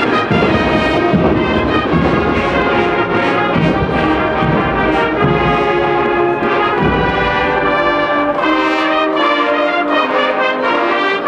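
A Spanish Holy Week agrupación musical, a brass-and-drum marching band, playing a processional march. Trumpets and trombones carry the melody over a steady drum beat, which falls away in the second half, leaving the brass.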